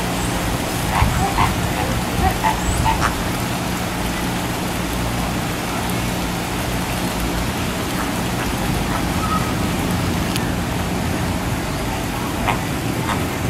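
Flamingos giving short, repeated honking calls, a cluster in the first few seconds and a few more near the end, over a steady low hum and rushing noise.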